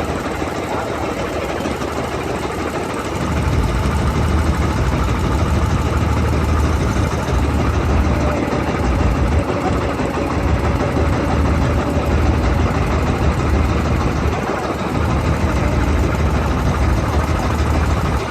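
Engine running steadily, with a heavier low rumble setting in about three seconds in.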